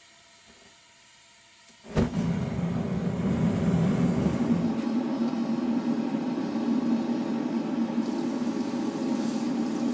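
A workshop machine switched on about two seconds in, starting with a thump and then running steadily with a low mechanical rumble.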